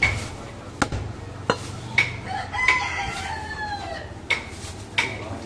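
Heavy butcher's knife chopping goat meat on a wooden chopping block: seven sharp knocks at irregular intervals of about half a second to a second. A rooster crows once, for about a second, in the middle.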